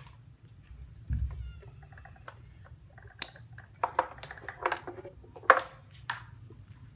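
A domestic cat meowing several times, mixed with clicks and rustling as two LiPo battery packs are pulled out of a model boat's hull.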